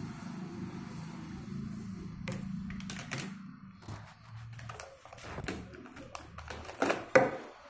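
Sharp clicks and taps of felt-tip marker pens being handled, capped and set down on a table, the loudest pair near the end. A low rumble dies away about halfway through.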